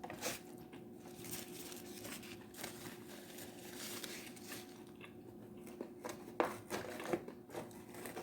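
Quiet eating sounds: soft chewing and light crinkling of food wrapping, with a few small clicks, over a faint steady hum.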